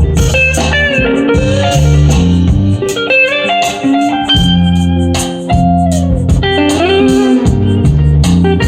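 Instrumental break of a recorded song: an electric guitar lead with bending notes over bass and drums, played back through a P3A power amplifier.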